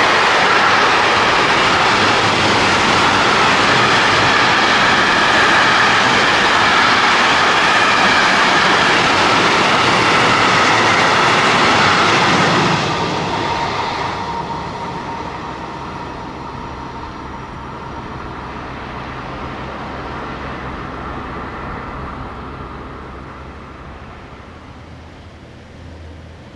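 A long container freight train's wagons roll past close by with a loud, steady rush of wheels on rail. About 13 seconds in, the last wagon passes: the sound drops suddenly, then fades away as the train recedes.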